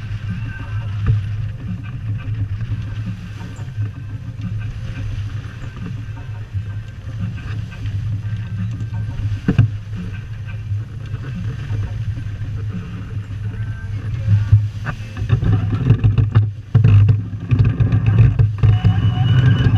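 Strong wind buffeting the microphone over the rush of water along a sailboat's hull as it heels under sail, the gusts growing stronger in the last few seconds.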